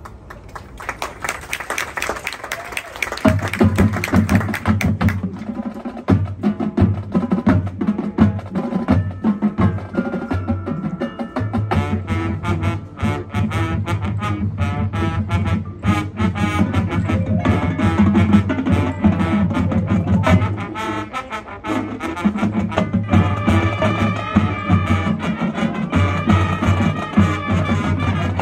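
Marching band playing its field show: brass over drumline and front-ensemble percussion, heard from the stands. The music swells over the first few seconds, and a strong low end comes in about three seconds in.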